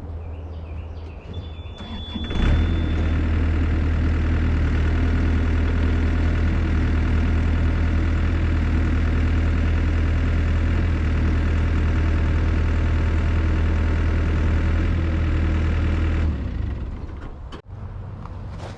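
Excavator diesel engine running at idle, then revved up about two seconds in and held loud and steady for about fourteen seconds before dropping back to idle. This is the rise in revs of the machine being used to shift the parts by hydraulics.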